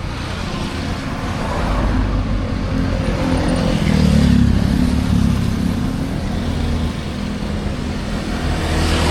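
Road traffic: motor vehicles passing close by with engine hum and tyre noise, loudest about four seconds in and rising again near the end.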